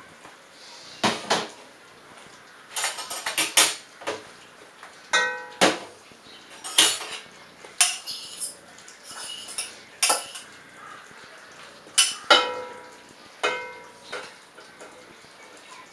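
Metal utensil knocking and scraping inside a stainless-steel pot while cooked green beans are served out of it: irregular clanks, a few of them ringing briefly.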